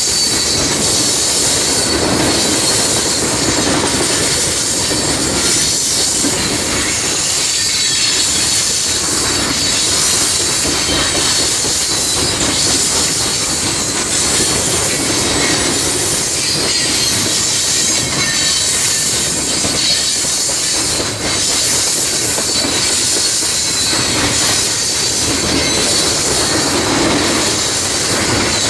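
Freight train of steel coal hopper cars rolling steadily past close by, wheels rumbling on the rails with a steady high-pitched wheel squeal.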